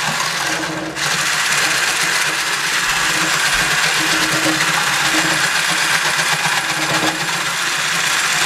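Braun immersion hand blender running steadily, beating egg whites to a foam in a stainless steel bowl. The motor drops out for a moment a little under a second in, then runs on.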